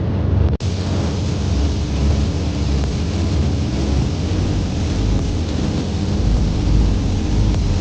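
Background music with a heavy, rumbling low end, broken by a brief dropout about half a second in.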